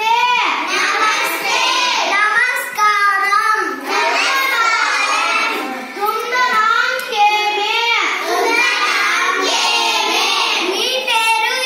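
Children singing, with pitch that rises and falls and some notes held.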